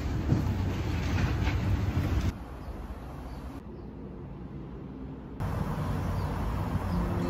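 Low rumbling background noise with no clear single source, dropping abruptly to a quieter hiss about two seconds in and rising again near the end as the shots change.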